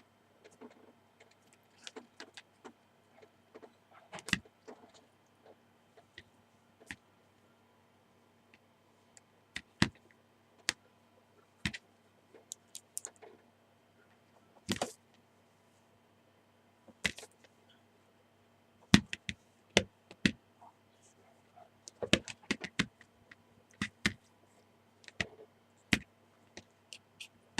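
Irregular taps, clicks and clattering knocks of a cat at play, some much sharper than others, over a faint steady electrical hum.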